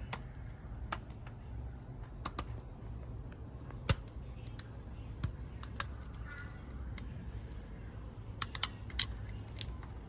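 Scattered sharp clicks and ticks of a metal hand tool working on a brass N connector as excess solder is trimmed off, over a steady low hum. The sharpest click comes about four seconds in, and a quick cluster comes near the end.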